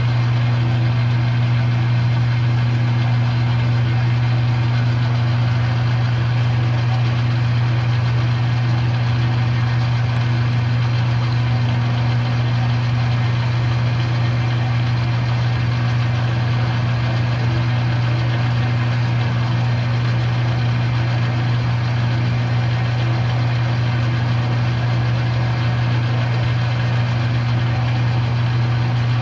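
Metal lathe running steadily while a steel bushing is machined, a constant machine hum with no change in speed.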